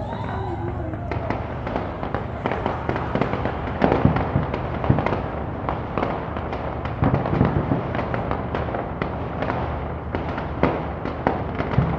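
New Year's fireworks going off in quick succession, heard from a distance: a dense run of bangs and crackling pops over a constant low rumble, the biggest bangs about four and seven seconds in.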